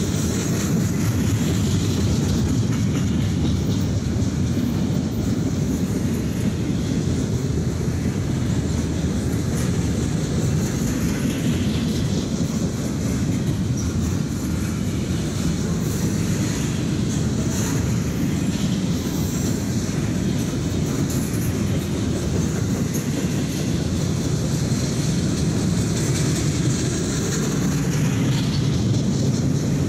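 Double-stack intermodal container cars rolling past: a steady rumble of steel wheels on the rails, with clickety-clack over the rail joints.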